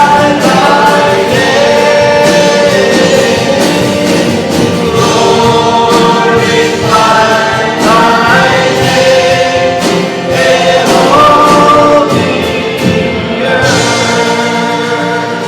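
A group singing a worship song in unison with instrumental accompaniment. The bass drops out about a second and a half before the end as the song winds down.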